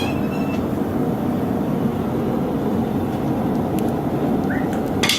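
A forge running with a steady low rumble while a horseshoe blade heats in it, with a few faint clicks near the end.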